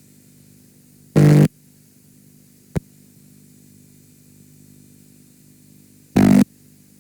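Damaged VHS tape playback: a steady low hum with faint hiss, broken twice by short, loud bursts of distorted buzzing noise, about a second in and near the end, with a single sharp click in between.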